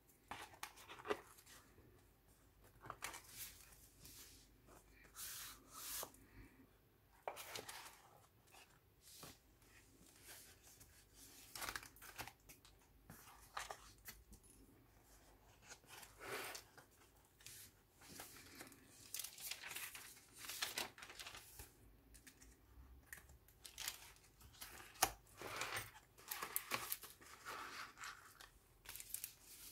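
Stiff paper and card pages of a handmade junk journal being turned and handled: irregular soft rustles and swishes, one page after another.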